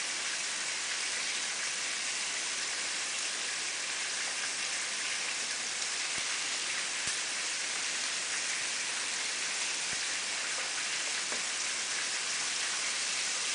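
Steady sizzle of floured catfish pieces frying in hot oil, with a few faint ticks.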